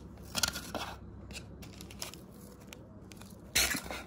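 Small bowls being set down and slid on a glass tabletop: a short scraping rustle about half a second in, a few light clicks, and a louder scrape near the end.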